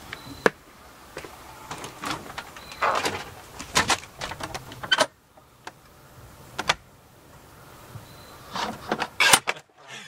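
Metal mail-slot flap on a front door clacking and rattling as it is pushed open and let fall shut, among a string of sharp knocks and clicks on the door.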